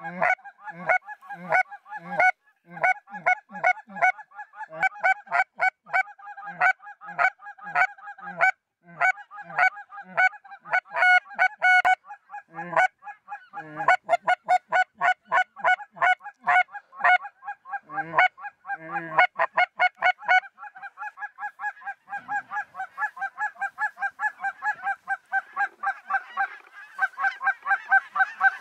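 A flock of snow geese calling, a constant chorus of short, high honks repeated several times a second, thickening into dense unbroken chatter in the last third.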